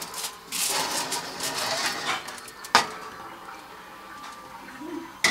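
Foil-lined metal baking tray rustling and scraping as it is handled at an open oven, then one sharp knock a little past halfway, as of the tray meeting the oven rack.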